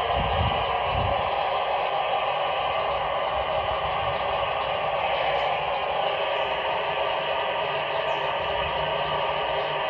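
Steady hiss of FM receiver noise from a handheld amateur radio transceiver's speaker, listening on the AO-91 satellite downlink with no station coming through. A few low thumps in the first second.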